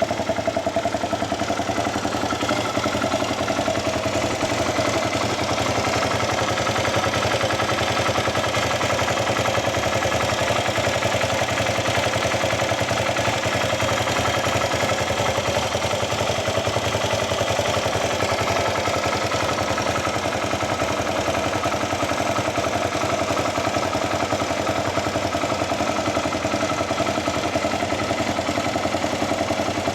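Yamaha WR250X's 250 cc single-cylinder four-stroke engine idling steadily through an aftermarket Delta Barrel 4 silencer with Powerbox pipe.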